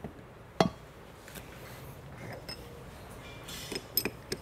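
Metal parts and tools clanking on a workbench while a differential carrier is handled: one sharp clank about half a second in, then a few light clinks near the end.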